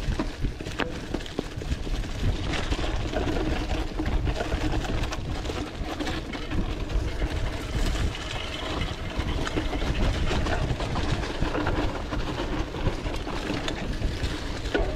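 Mountain bike ridden down a dirt trail: a steady low rumble of tyres on dirt and wind on the microphone, with constant rattling and clicking from the bike.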